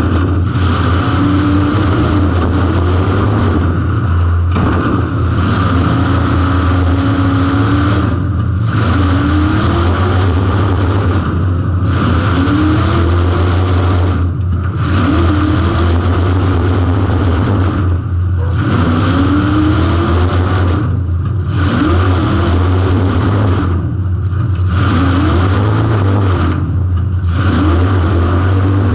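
Car engine heard on board under racing throttle, revving up and easing off about every three seconds, over a steady low hum.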